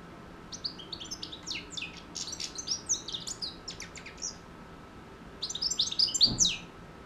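Six-month-old European goldfinch singing in its cage: two bursts of quick, high twittering notes, a long one and then a shorter one about a second later.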